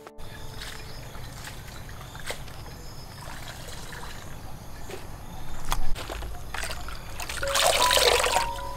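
Water trickling and sloshing as sliced bamboo shoots are rinsed by hand in a basin of water and lifted out dripping, with small handling clicks and a louder splash near the end.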